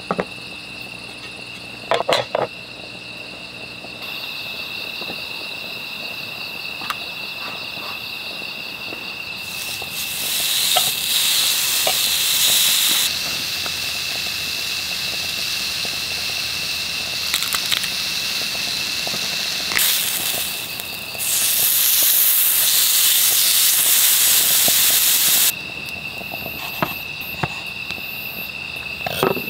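Crickets trilling steadily in a high, even tone, with a few light taps of utensils. Two stretches of loud hissing from the cooking, about ten seconds in and again from about twenty seconds in, each start and stop suddenly.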